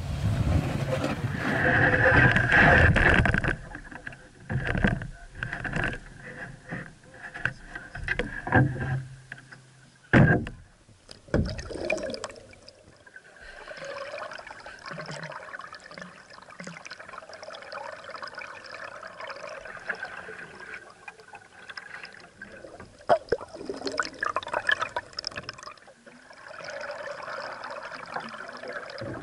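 Strokes of a laminated wooden canoe paddle in lake water: irregular splashes and gurgles as the blade dips and pulls, louder in the first few seconds, then a steadier sound of water with drips and swirls.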